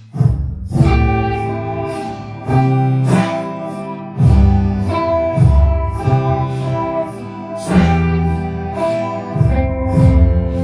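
Background music with a steady beat and bass notes that change about every second.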